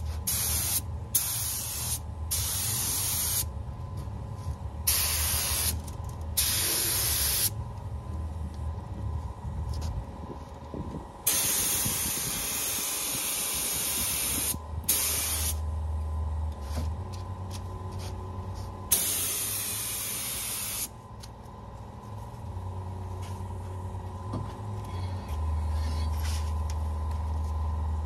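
Gravity-feed paint spray gun spraying epoxy primer in repeated trigger pulls, each a burst of air hiss. Most pulls are short, with a longer pass of about three seconds near the middle and another of about two seconds later on. A steady low hum runs underneath.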